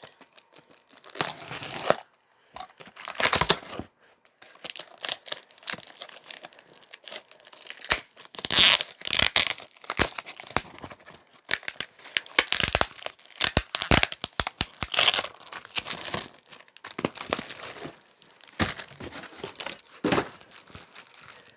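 Packing material and a cardboard shipping box being handled and dug through: irregular crinkling, rustling and tearing.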